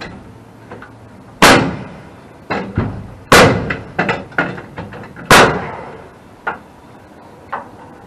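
Pneumatic framing nailer firing nails into wooden framing: three loud sharp shots about two seconds apart, each with a short ring-out, with lighter knocks and taps between and after them.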